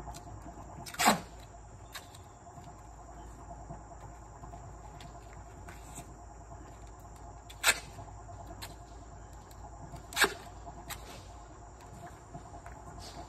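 Insects chirring steadily in a high, even drone, with three loud sharp taps about a second, seven and a half and ten seconds in, and a few fainter ticks as the stair foam is worked by hand.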